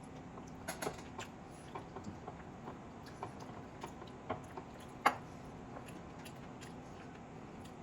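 Eating sounds from a chicken biryani mukbang: scattered soft clicks and taps of mouth, fingers and plate, with one sharper click about five seconds in, over a faint steady hum.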